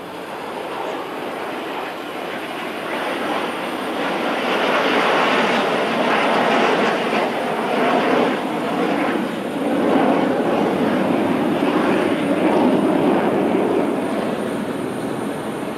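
Jet engines of a formation of fighter jets flying overhead: a steady rushing noise that swells over the first few seconds, stays loud through the middle and eases slightly near the end.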